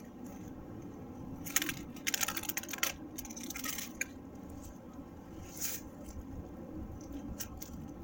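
Papery, peeling tree bark crackling and tearing as a hand pulls at it. The crackling comes in dense bursts from about one and a half to four seconds in, with a few shorter crackles later.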